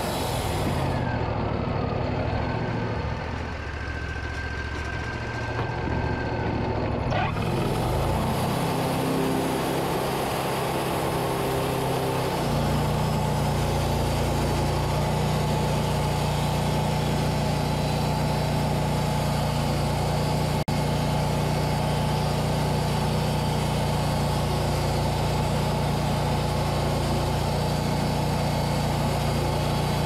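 Portable band sawmill running, its engine working as the band blade cuts a board from a yellow birch cant. About twelve seconds in, the engine note settles into a strong, steady hum under the load of the cut.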